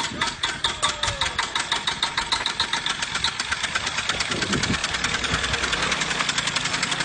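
Small engine of a homemade log motorcycle running, its exhaust beats coming several times a second at first, then quickening and running together from about four seconds in as the machine moves off.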